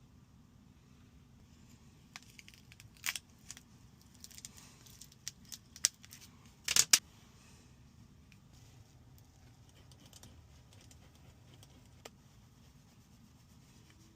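Scattered sharp clicks and taps of small repair tools and phone parts being handled during an iPhone battery replacement, loudest in a quick cluster about seven seconds in, then only a faint low hum.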